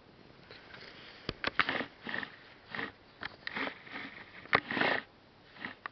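French bulldog sniffing and snuffling in a string of short bursts, with a few sharp clicks among them.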